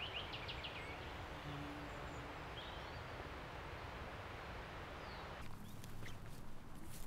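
Steady rushing of river water. A small songbird finishes a falling run of chirps in the first second, with a couple of brief chirps later. About five seconds in, the rush drops away and light steps and rustles on dry grass take over.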